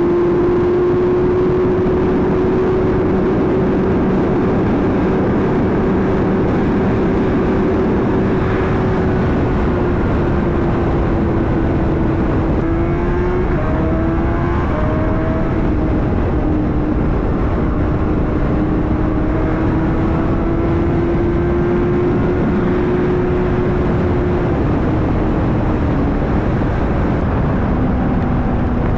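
Honda CBR600RR's inline-four engine running at a steady cruise, its pitch holding nearly level with a brief dip and recovery about halfway through, under heavy wind rush on a chin-mounted helmet camera.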